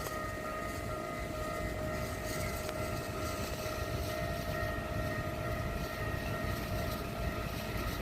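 Railway level-crossing warning alarm sounding its special warning tone: one steady, unbroken tone with overtones, signalling an approaching train. A low rumble sits underneath and grows a little louder near the end.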